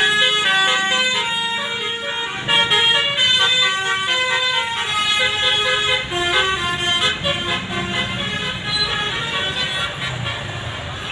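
Basuri 'telolet' multi-note air horn on a passing bus playing a quick melody, its notes stepping up and down, over engine and traffic rumble. The tune fades out about ten seconds in, leaving road noise.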